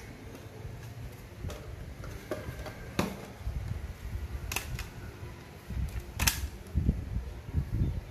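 Hard plastic clicks and knocks as the parts and casing of a Sony cassette boombox are handled and fitted during reassembly. There are a few sharp clicks spread through, then several duller bumps near the end.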